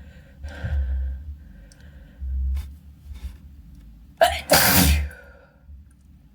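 A person sneezes into a handkerchief about four seconds in, a sharp catch followed by a loud half-second burst. Before it comes a gasping breath in, about half a second in.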